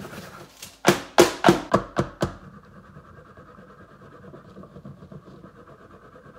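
A plastic bonbon mold filled with ganache is rapped on the work surface about six times in quick succession, roughly four knocks a second, then jiggled back and forth against the surface in a steady low rattle, which settles and levels the filling in the cavities.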